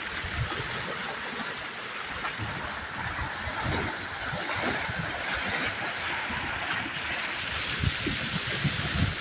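Steady rush of water flowing in a stream, with a few low bumps mixed in.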